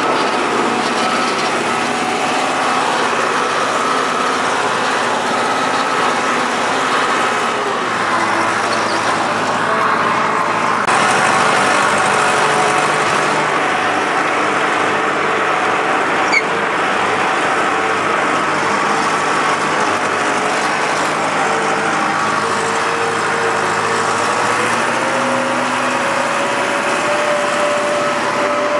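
John Deere tractor engine running steadily under load, pulling a disc harrow through tilled soil. Its pitch creeps slightly upward a few seconds before the end.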